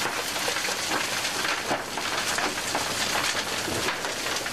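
Mined dirt and rubble from a gold mine pouring and sliding, a steady dense hiss of countless small stones clattering against each other.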